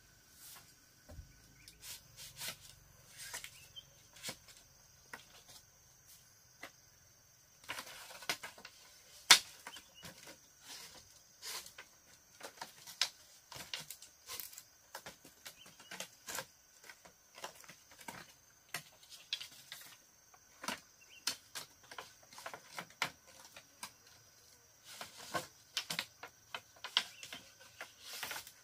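Irregular light clicks and knocks, as of bamboo pieces being handled and worked by hand, one to three a second with a sharper knock about nine seconds in, over a faint steady high tone.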